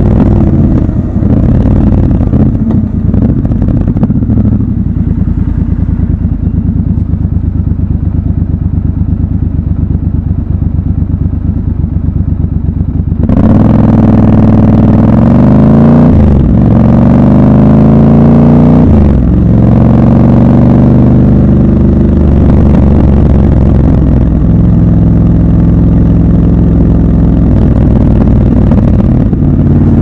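Triumph Scrambler 1200 XC's 1200 cc parallel-twin engine running at a steady cruise, then, about halfway through, opening up suddenly and pulling hard. The revs climb and fall back twice as it shifts up, then settle to a steady cruise that eases off a little near the end.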